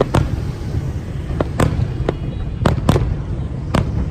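Aerial fireworks bursting: about seven sharp bangs at irregular intervals, some in quick pairs, over a steady low rumble.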